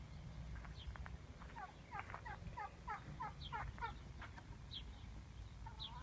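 Turkey calling: a faint series of about eight short, falling notes, roughly three a second, between about one and a half and four seconds in.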